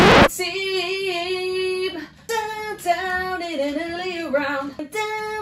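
A high female voice singing a melody with wavering held notes, opening with a short loud burst of noise at the very start.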